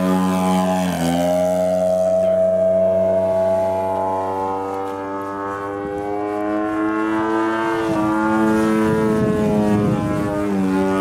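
Engine and propeller of a 37%-scale Ultimate aerobatic biplane RC model running at high power as it takes off and climbs out, a loud, steady droning tone. Its pitch shifts slightly a few times: about a second in, near the eight-second mark and near the end.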